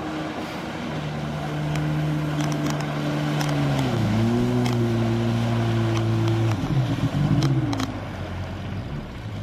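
Two-stroke jet ski engine running close by, its pitch shifting about four seconds in, then rising and falling a few times as the throttle is blipped before settling back toward idle near the end.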